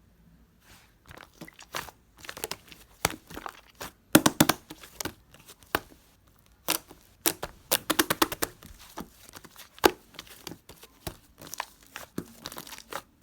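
Hands kneading and pressing slime, giving an irregular run of sticky clicks and crackles that starts about a second in, with quick clusters of pops.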